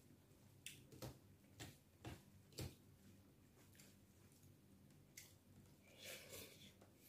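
Faint eating sounds from a meal eaten by hand: a few soft clicks in the first three seconds, then a brief wet sound near the end as a handful of food goes into the mouth.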